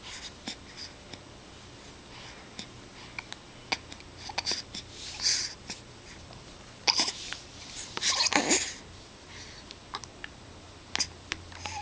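A newborn baby hiccuping: a few short, sharp catches of breath at irregular intervals, with faint clicks between.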